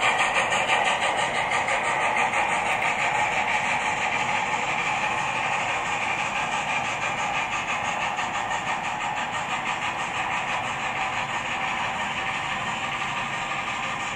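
HO-scale SAR GMAM Garratt model running under its LokSound 5 sound decoder: a fast, even rhythm of steam chuffs from the model's speakers, mixed with the wheels of its wagons and coaches rolling on the track. The sound slowly fades.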